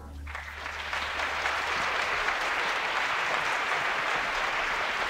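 Concert audience applauding, the clapping breaking out about a third of a second in and holding steady, as the last low note of the jazz band's final chord dies away under it.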